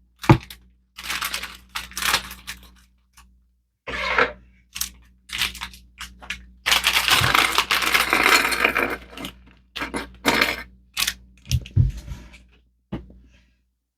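Handling Lego pieces and their packaging: a run of short plastic rustles and crinkles, a longer rustle of about two seconds in the middle, and several sharp clicks of plastic bricks.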